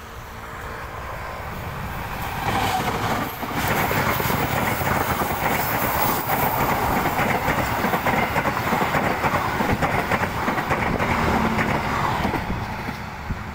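Passenger train hauled by a CC 201 diesel-electric locomotive passing close by. The sound swells as the locomotive goes past about two to three seconds in, then the coaches' wheels clatter steadily over the rails, loud, before fading near the end.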